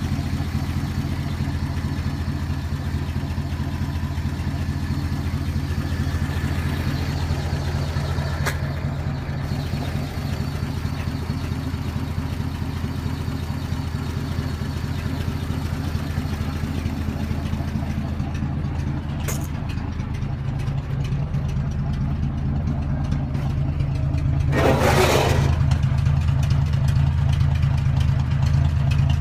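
The engine of a 1950 Chevrolet idling steadily. Near the end a hiss lasting about a second cuts in over the idle.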